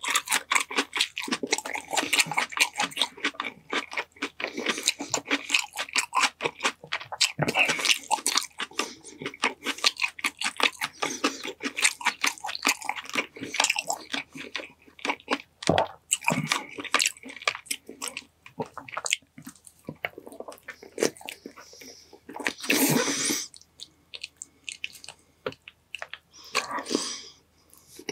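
Close-miked mukbang eating: a person chewing and biting into a meal of honey-glazed chicken drumsticks with olives and rice. The chewing is dense and rapid for the first half, then thins out with pauses, and two longer, louder noisy sounds come near the end.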